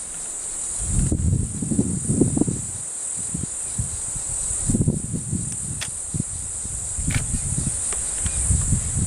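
Steady high-pitched chirring of insects, with irregular low rumbles coming and going and a few sharp clicks.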